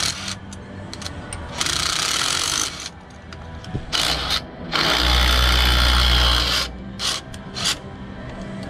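Cordless drill-driver run in two short bursts, the second longer and heavier, driving set screws on a conveyor sprocket hub; a few short clicks of tool on metal follow.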